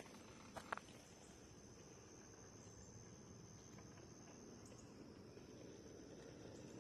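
Near silence: a steady high-pitched trill of crickets, with a few faint clicks in the first second from the railroad cars' wheels rolling along the track.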